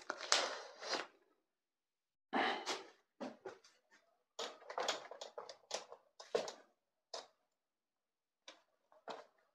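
A red cloth duster wiping a whiteboard: a series of short, irregular rubbing strokes with brief pauses between them.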